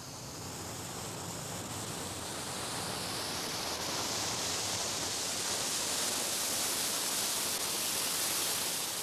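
Taxi driving along the road, a steady rush of tyre and engine noise that swells louder as the car comes closer.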